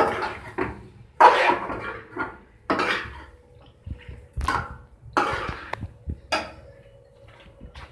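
Metal spoon stirring and scraping macaroni and masala in a metal kadhai: a series of short scraping strokes, roughly one a second, with quiet gaps between.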